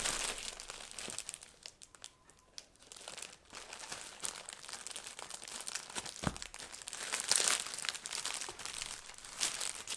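Plastic wrapping and reflective decal sheets crinkling and rustling as they are handled, in an irregular crackle with a brief lull early on and a single light knock about six seconds in.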